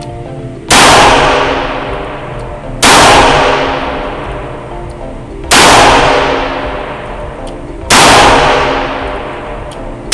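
Taurus 856 Executive Grade .38 Special revolver fired four times, double-action only, about two to two and a half seconds apart; each shot is a sharp report with a long ringing decay.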